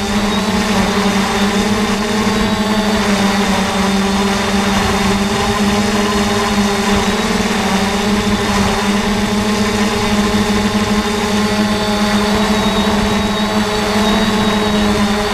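Small multirotor camera drone hovering: its propellers give a loud, steady whine at one unchanging pitch.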